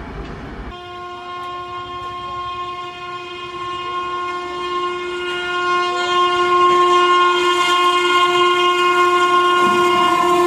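An Indian Railways locomotive sounds one long, unbroken horn blast as it approaches, growing steadily louder. Just before the horn starts, under a second in, a passing train's rumble cuts off.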